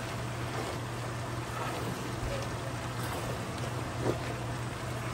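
Okra frying in palm oil in a large metal pot, stirred with a wooden spoon: a steady sizzling hiss with occasional soft scrapes and splats, over a constant low hum.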